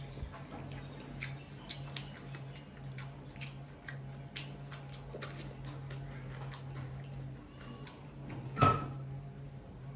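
Close-up eating sounds of a person chewing crunchy raw vegetable strips, with many small crisp mouth clicks, over a steady low hum. One louder, brief sound stands out near the end.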